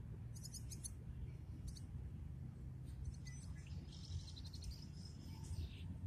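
Small songbirds chirping in short, high-pitched bursts, with a longer run of rapid trilling notes from about three seconds in until just before the end, over a steady low rumble.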